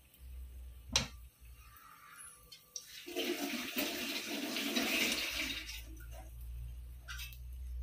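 Soy sauce mixture sizzling and bubbling up in a hot wok for about three seconds midway, as it is stirred with a silicone spatula. A single sharp tap comes about a second in.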